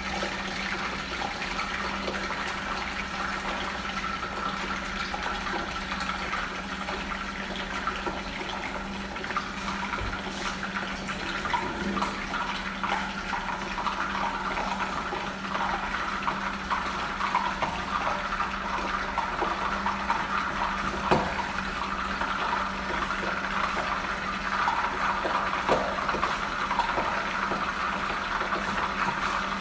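Fish frying in oil in a lidded pan, a steady sizzle, with a steady low hum under it.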